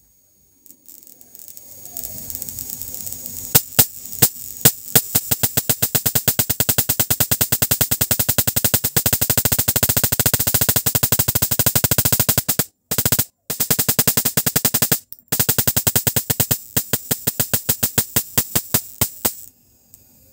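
High-voltage sparks snapping in a rapid, steady train of sharp cracks, many per second, with two brief breaks in the second half.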